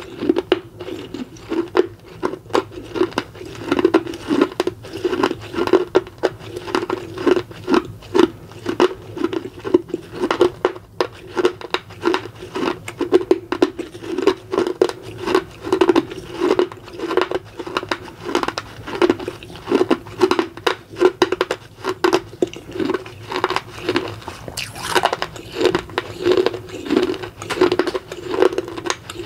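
Close-miked chewing of baked red clay from a miniature clay pot: a steady rhythm of chews with dense gritty crunches and crackles, and a sharper crackle near the end.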